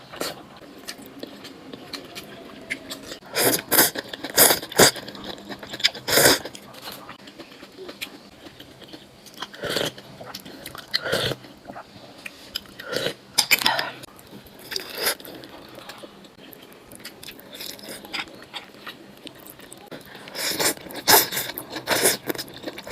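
A person eating: irregular bites and chewing, with sharp crunchy bursts every few seconds.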